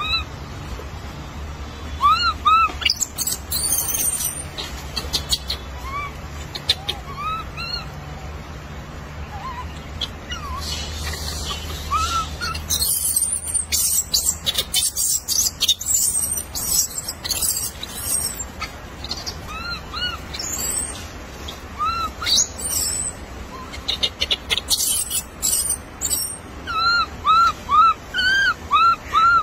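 Short arched chirping calls, repeated every second or two and coming in a quick run of five or six near the end, over crackling rustles of dry leaf litter.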